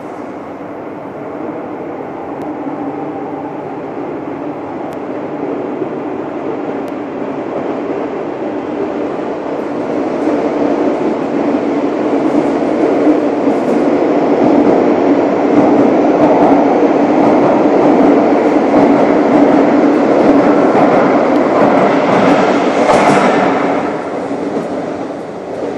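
Madrid Metro 8400-series electric train running through an underground station without stopping: its rumble builds as it comes out of the tunnel and is loudest while the cars pass the platform. A brief, sharper burst of noise comes shortly before the end, then the sound falls away as the train enters the far tunnel.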